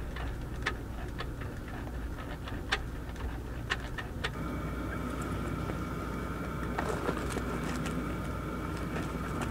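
Steady low hum of a small tent ceiling fan running, with a few sharp, irregular ticks. About halfway through, a steady higher-pitched whine joins in.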